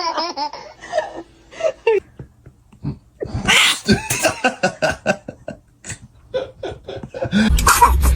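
Laughter in short repeated bursts, with a sharp noisy burst about three and a half seconds in that fits a child's sneeze. A low rumble comes in near the end.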